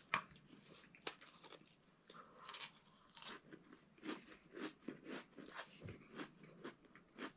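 A person biting and chewing a dry MRE cracker: faint crisp crunches, settling into a steady chew of about two a second in the second half.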